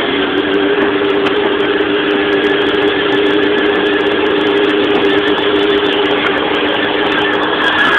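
Modified 24-volt Power Wheels Escalade ride-on toy driving in first gear: its electric drive motors and gearboxes whine at a steady pitch, over the noise of the wheels rolling on the road.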